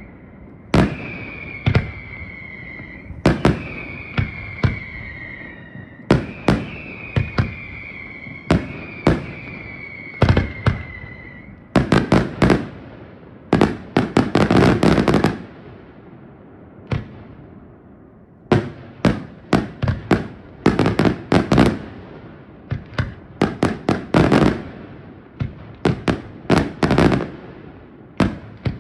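Aerial fireworks display. For the first twelve seconds or so, whistles that fall slightly in pitch repeat about every second and a half between sharp bangs; after that, shell bursts come in quick, dense volleys of bangs.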